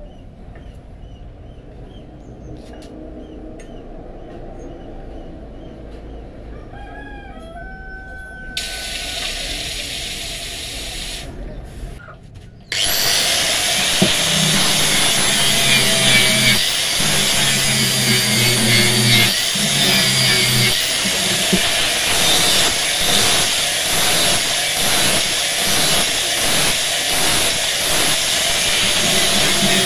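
Electric angle grinder with an abrasive disc starting up about 13 seconds in and grinding the steel blade of a large meat cleaver. Its note dips again and again as it is pressed on in repeated passes. Before it starts, faint bird chirps and a few seconds of hiss.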